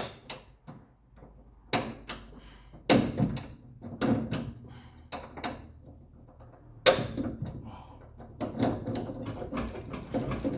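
Irregular clunks and knocks of metal parts and tools as a Triumph TR3 steering rack clamp is worked off and the rack pushed up, the sharpest knock about seven seconds in.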